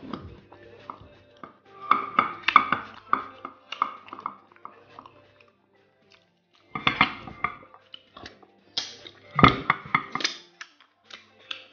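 Close-miked eating by hand: fingers working semolina through slimy ogbono soup, then lips sucking and smacking as food goes into the mouth and fingers are licked. The sounds come in irregular wet clusters, loudest about two seconds in and again from about seven to ten seconds in.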